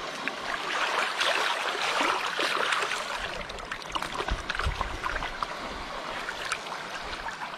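A cooked mud crab being swished and rinsed in shallow water by hand: splashing and trickling water, with many small clicks as the shell is worked apart.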